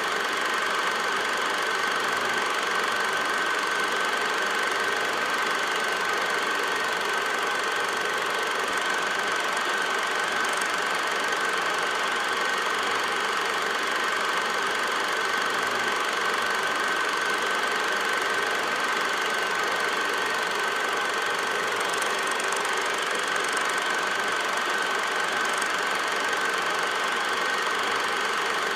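8mm film projector running steadily: a constant mechanical whir and clatter with a steady high whine.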